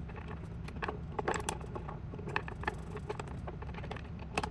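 Light, scattered clicks and taps of small steel screws and a screwdriver being handled as a bracket is screwed onto the board's side rail, over a low steady hum.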